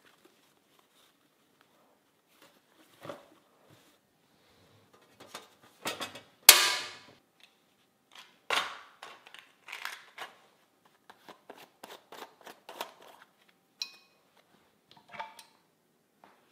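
Sharp clicks and knocks from handling a steam iron and linen on a padded ironing board, with light fabric rustle. The loudest, a single hard clack with a short tail, comes about six and a half seconds in; smaller knocks follow every second or so.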